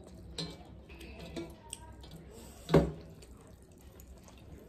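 Fingers mixing rice with curry on metal plates and eating by hand: small wet squishing and smacking sounds with light clicks, and one louder short thump a little under three seconds in.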